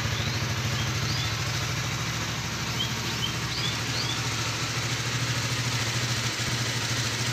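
Honda CBR motorcycle engine idling steadily while being warmed up. A few short, high rising chirps sound over it in the first four seconds.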